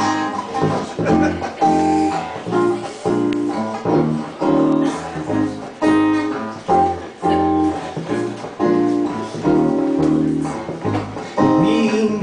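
Acoustic guitar strumming chords in a steady rhythm, with a bass ukulele playing low notes along with it.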